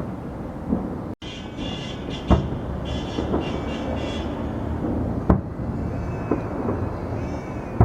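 Fireworks exploding: a continuous low rumble of distant bursts with several sharp, loud bangs, the loudest about two and five seconds in. The sound cuts out for an instant about a second in.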